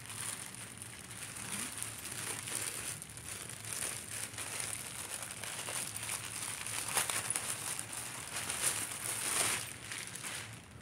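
Clear plastic poly bag crinkling as a packaged garment is handled, opened and pulled out. The crackles come irregularly, with louder bursts about seven and nine seconds in.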